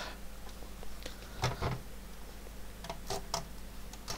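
A few small faint clicks and knocks as hands work on an opened Atari 800 computer: a pair about a second and a half in, a short cluster around three seconds, another near the end.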